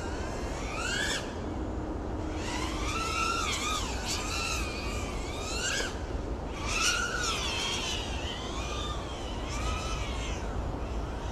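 FPV quadcopter's motors whining in flight, pitch swooping up and down with each throttle change, over and over. A steady low rumble runs underneath.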